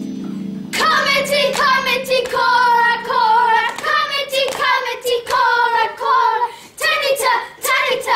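Children's voices singing a song, starting about a second in as a held keyboard chord dies away.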